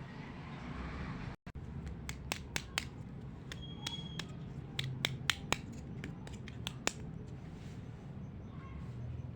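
Irregular sharp clicks and taps of small plastic toy pieces being handled, about fifteen of them over several seconds, with a brief thin ring among them about four seconds in.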